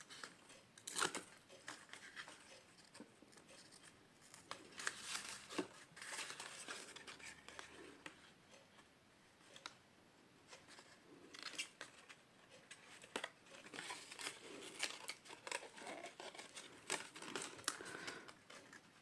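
Cardstock and paper being handled and pressed together: intermittent rustling and crinkling with sharp clicks and taps.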